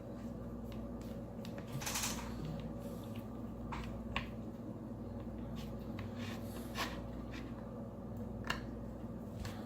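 Small clicks and taps from handling a smartwatch and its small parts, about five scattered over several seconds, one near the start a short scrape. A steady low electrical hum runs underneath.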